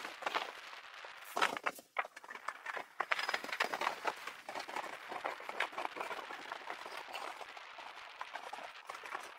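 Bicycle rattling as it rolls along the road, a dense, irregular clatter and ticking with a brief lull about two seconds in.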